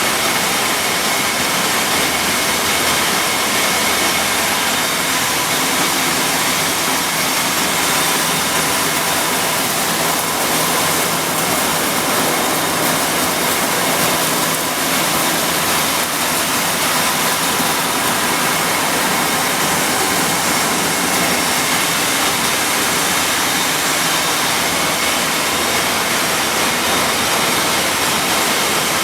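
Corn milling line machinery running at full speed: a loud, even mechanical noise with a faint steady high whine over it.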